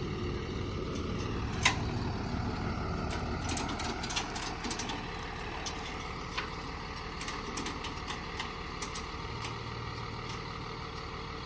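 An engine idling steadily, with scattered sharp clicks and taps over it, the sharpest about two seconds in.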